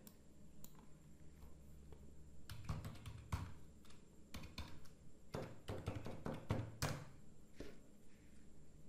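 Faint typing on a laptop keyboard: scattered key taps in short irregular runs, thickest about three seconds in and again around five to seven seconds in, as login details are keyed in.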